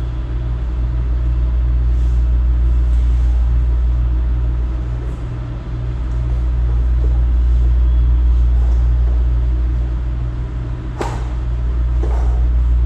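A steady low rumble, with a few faint knocks, the plainest about eleven seconds in.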